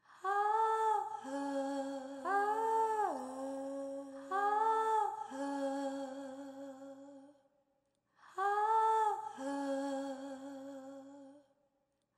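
Wordless female humming in layered harmony, slow held notes opening a song: one long phrase, about a second of silence, then a second phrase.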